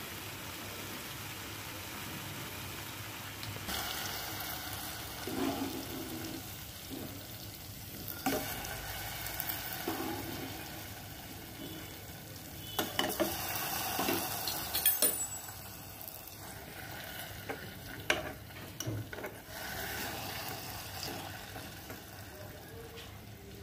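Jalebi sizzling as they fry in hot oil in a kadhai, with a metal utensil scraping and stirring in the pan. Several sharp clinks of the utensil against the pan come about halfway through.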